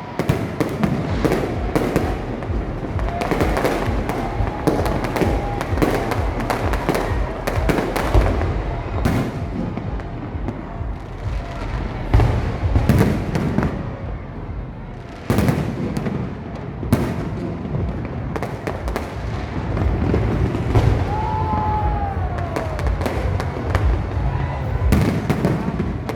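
Fireworks display: a dense, continuous run of bangs and crackling pops, with sharp louder bursts about twelve and fifteen seconds in.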